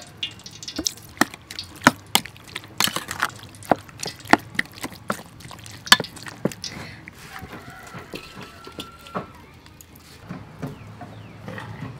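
Irregular clicks and knocks of a utensil against a stainless steel pot as cubed raw beef is mixed with soy sauce and other seasonings, with wet squelching of the meat.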